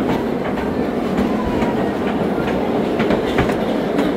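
Miniature railroad cars rolling along the track, heard from aboard: a steady rumble of steel wheels on rail with irregular clicks over the rail joints.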